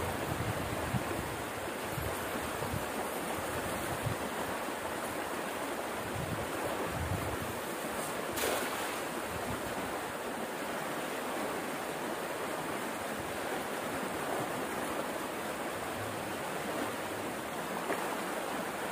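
Small stream running steadily, with water rushing over a low cascade.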